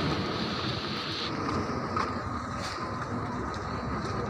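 Outdoor road noise: a steady low rumble with a higher hiss that cuts off about a second in.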